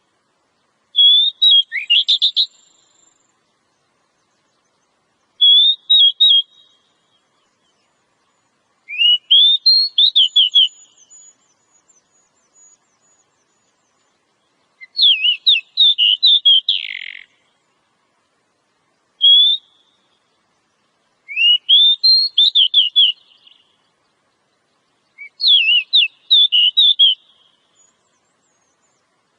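Oriental magpie-robin (kacer) singing: seven short phrases of quick whistled notes, some opening with a rising glide, each one to two seconds long and separated by pauses of a few seconds.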